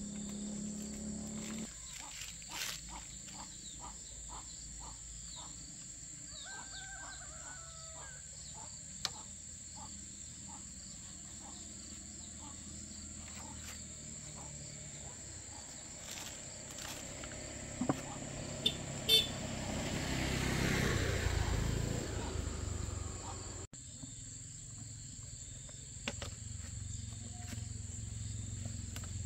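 Steady high-pitched insect drone, with scattered light knocks and scrapes of hand work on a walking tractor. A louder rushing noise swells up about twenty seconds in and cuts off abruptly.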